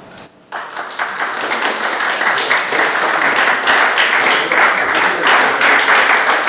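Audience applauding, beginning suddenly about half a second in and holding as dense, steady clapping.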